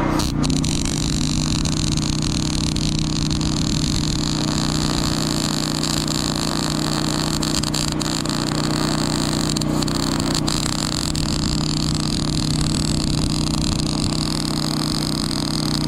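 Wire-feed (MIG) welding arc hissing and crackling steadily as a bead is run along a steel pipe fence rail. It starts just after the beginning, with a few sharp pops in the middle. A steady engine hum runs underneath.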